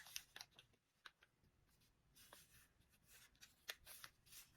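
Faint rustling and scattered small clicks of packaging being handled.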